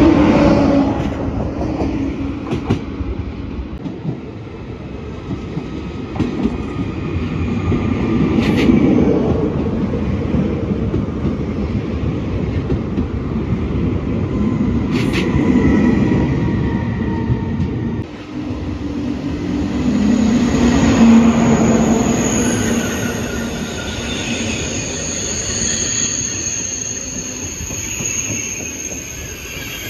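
A train running through a station with a continuous heavy rumble and two sharp clicks. In the last third, a high, wavering squeal of wheels on the rails joins in.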